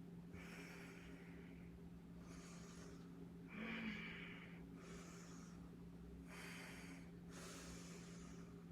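A woman breathing hard through her nose and mouth during deadlift reps: a run of short breaths in and out about every second, the loudest one just under halfway through carrying a brief voiced note. A steady low hum runs underneath.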